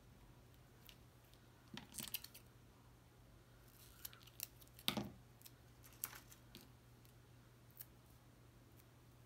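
Scissors making a few short, sharp snips, with small handling clicks in between; the loudest cut comes about five seconds in.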